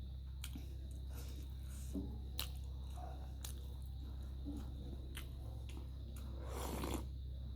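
Close-miked mukbang eating sounds: wet chewing and biting with scattered mouth clicks and crackles, and a louder burst of crunching or slurping about six and a half seconds in.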